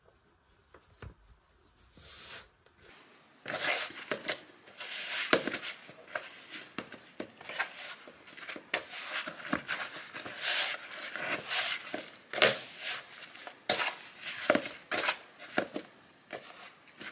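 Hands kneading soft, buttery bread dough in a plastic mixing bowl: irregular pressing and slapping of the dough, with hands rubbing against the bowl. It is nearly quiet at first, and the kneading sounds start about three and a half seconds in.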